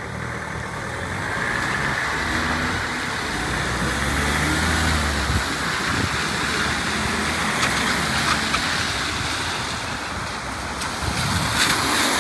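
Cars and a van driving over the crossing on a wet road, tyres hissing on the wet tarmac. The van's engine passes close about four to five seconds in.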